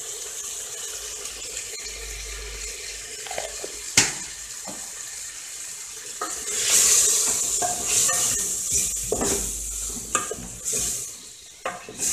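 Pork ribs sizzling in an aluminium pressure cooker, stirred with a wooden spoon. There is one sharp knock about four seconds in, and from about halfway the sizzling grows louder, with the spoon scraping and knocking against the pot.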